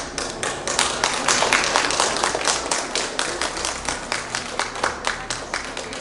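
Applause: hands clapping in a brisk, even rhythm of about five claps a second. It starts suddenly, is loudest in the first few seconds, then slowly tapers off.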